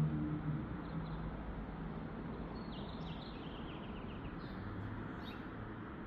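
Outdoor background noise with a run of faint bird chirps about halfway through. A low held tone fades out in the first half-second.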